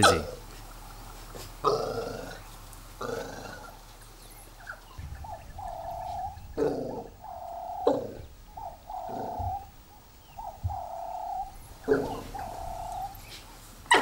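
African wild dogs calling: a run of about five short, high whining squeals, each around half a second, in the second half, with wet gulping and gurgling feeding noises and a few sharp clicks.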